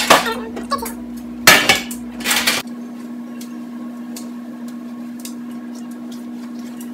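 A few loud clanks of metal baking pans being handled at the stove, bunched in the first couple of seconds. After them come only a few faint clicks over a steady low hum.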